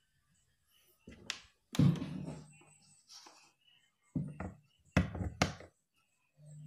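Knocks and thumps from handling an electro-acoustic guitar and its cable while it is being connected to an audio mixer, several of them followed by a brief low hum. A steady low tone begins near the end.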